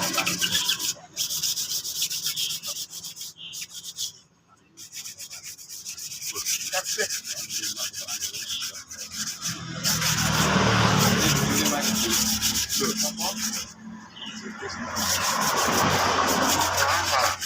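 Sandpaper rubbing over the filler-coated motorcycle fuel tank, a rapid scratchy sanding noise with a couple of short pauses: the body filler being sanded down before painting.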